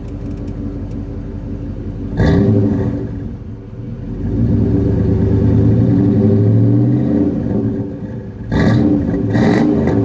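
1999 GMC Yukon's small-block 350 V8 through a Flowmaster muffler and 2.5-inch dual exhaust, heard at the tailpipe, idling and being revved. There is a sharp rev about two seconds in, a longer rev from about four to seven seconds with the pitch climbing, and two quick blips near the end.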